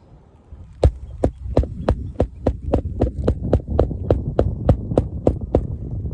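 Hammer driving a roofing nail through an asphalt shingle into the roof deck: about sixteen quick, evenly spaced blows, roughly three a second, over a low rumble.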